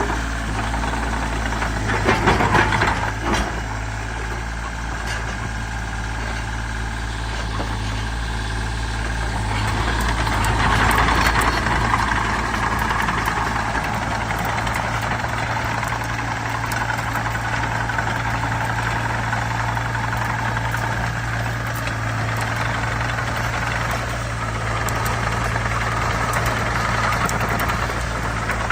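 Wacker Neuson EZ38 mini excavator's diesel engine running steadily, with a short run of sharp clanking knocks about two seconds in and a louder stretch around ten to twelve seconds in.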